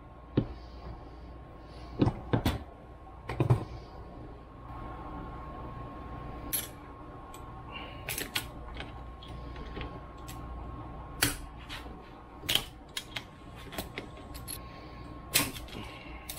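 Irregular metal clicks and clinks of locking pliers and hands working the U-joint of a double cardan driveshaft clamped in a steel bench vise, as a bearing cap is worked loose.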